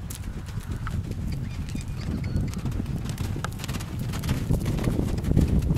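Hoofbeats of two young Irish Sport Horses cantering loose on a soft dirt arena surface, an irregular patter of many hoof strikes.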